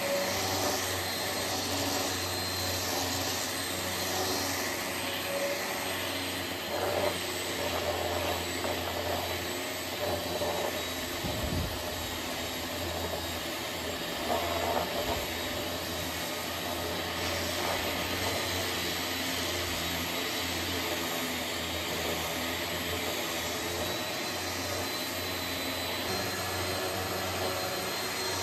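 Electric random orbital sander running steadily, its 60-grit paper rough-sanding a shaped wooden oar, while a shop vacuum hosed to the sander draws off the dust.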